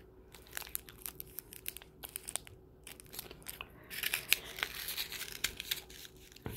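Plastic snack packaging crinkling and tearing as it is handled: a run of quick crackles, with a denser stretch of rustling about four seconds in.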